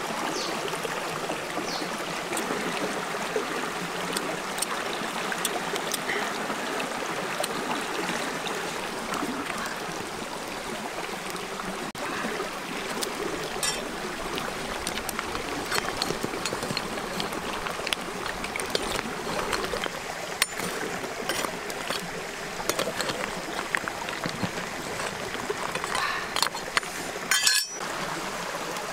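Steady rush of flowing stream water, with scattered light clicks and knocks over it; the sound breaks off for an instant near the end.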